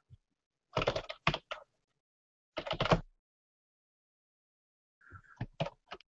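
Computer keyboard typing in three short bursts of keystrokes: one about a second in, one near three seconds, and one near the end.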